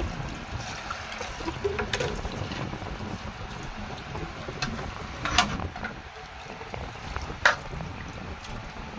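Water running and splashing as a child washes dishes, with a few sharp clinks of dishes being knocked together, the loudest two near the middle and toward the end.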